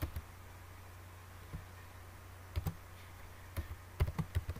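Scattered keystrokes on a computer keyboard: single and paired taps, then a quick run of several near the end, over a low steady hum.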